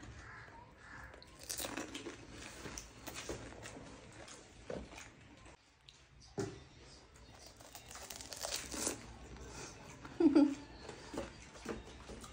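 Close-up crunching and chewing of pani puri, the crisp puri shells cracking in a full mouth as scattered crackles. A short muffled voice sound about ten seconds in.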